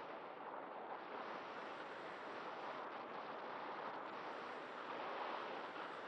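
Airflow rushing past the onboard camera of a radio-controlled ASW 28 scale glider in flight: a steady wind hiss with no motor note.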